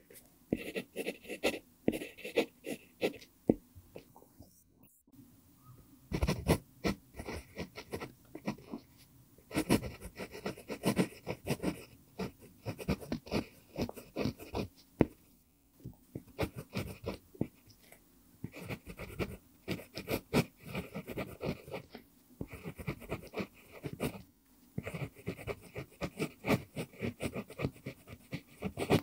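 Pentel PG5 mechanical pencil with a mupingo wood barrel writing on lined paper: the graphite lead scratches in quick runs of strokes, with short pauses between words and a brief silent break about four seconds in.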